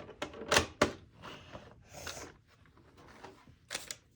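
Plastic toy parts being handled during assembly: a few sharp clicks and knocks, with softer rustling between.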